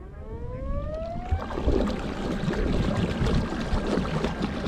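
Small electric motor on a kayak whining steadily upward in pitch as it spins up. About a second and a half in it gives way to water rushing and splashing along the hull as the kayak gets moving.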